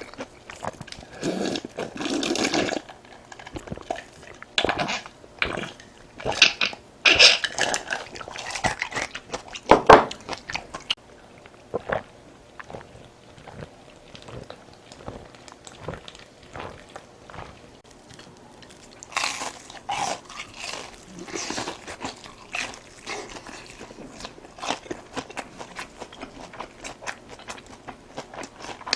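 Close-miked eating: biting, chewing and crunching of food, with many short clicks and louder clusters every several seconds.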